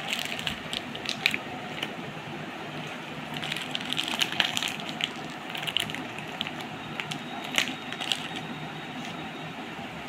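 A young parrot biting and tugging at a plastic biscuit wrapper, which crinkles and crackles in irregular bursts with scattered sharp clicks.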